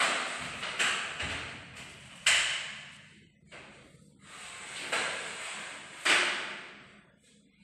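About four sudden knocks or bangs, each trailing off over a second or so in a hissing, scraping noise.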